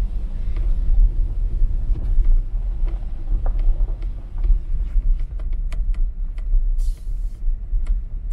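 Tyres of a Tesla Model Y, an electric car with no engine sound, rolling over a gravel dirt road, heard inside the cabin: a steady low rumble. Scattered sharp clicks come in from about halfway through.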